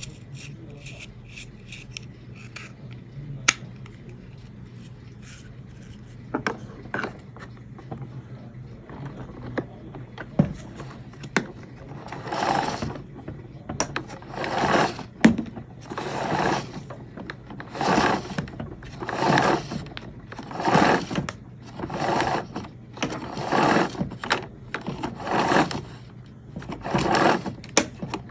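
Scattered light handling clicks, then from about twelve seconds in a run of rhythmic rubbing or scraping strokes, about one every second and a half, over a low steady hum.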